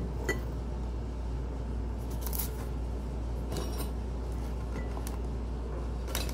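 Paper flour bag crinkling and rustling as it is handled and stood on the counter, with a couple of light knocks near the start, over a steady low hum.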